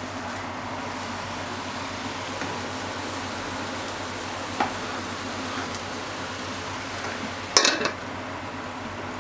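Sausages and eggs sizzling steadily in a frying pan, with a light knock about halfway through and a loud clatter near the end as the glass lid is set back on the pan.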